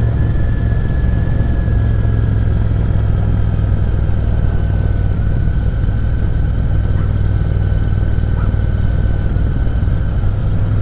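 Royal Enfield Continental GT650's 648 cc parallel-twin engine running steadily at cruising speed, heard from the rider's seat with a rush of wind noise over it. Its note drifts slightly lower over the stretch.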